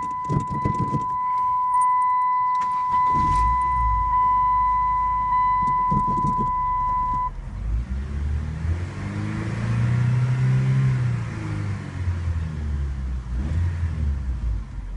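A car's steady electronic warning tone sounds for about the first seven seconds, while the 2002 Saturn SL's four-cylinder engine starts about three seconds in. After the tone stops, the engine runs, its sound rising and falling in the middle.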